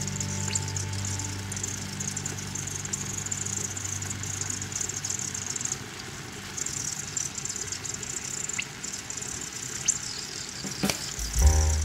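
Tomato sauce simmering in a stainless steel pan on a gas hob, a steady crackling hiss of small bubbles, over a steady low hum.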